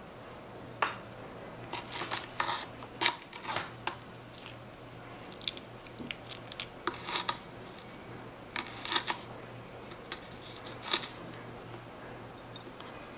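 Tiny knife peeling and slicing a shallot on a small wooden cutting board: irregular crisp snicks, scrapes and light taps of the blade through the skin and onto the board, coming in short clusters.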